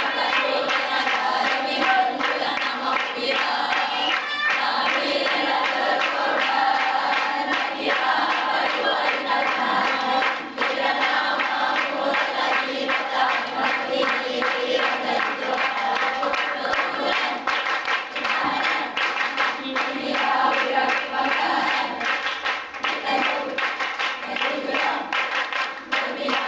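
A group of students singing a song together, with hand-clapping that comes in more strongly about halfway through.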